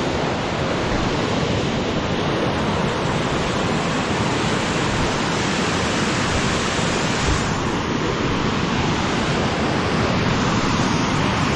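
Flowing stream water rushing in a steady, loud, even noise.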